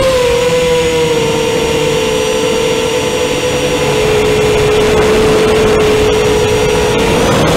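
LHI DX2205 2300KV brushless motors and propellers of a 210 mm FPV quadcopter whining in flight, heard through the onboard camera's microphone over rushing wind noise. The whine holds a steady pitch, sagging slightly in the first second and rising near the end.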